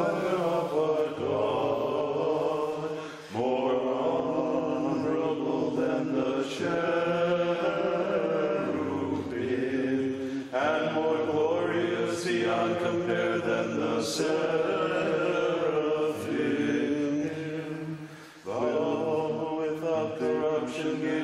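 Orthodox hymn chanted by voices in long, sustained phrases, with short breaks between phrases about every seven or eight seconds.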